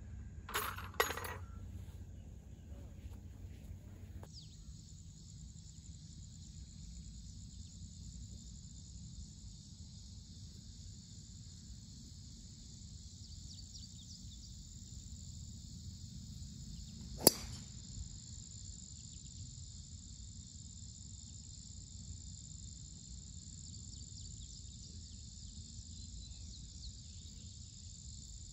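Steady high chirring of insects, with one sharp crack of a golf driver's clubhead striking the ball off the tee a little past halfway through. Near the start, two light clicks from a putted ball.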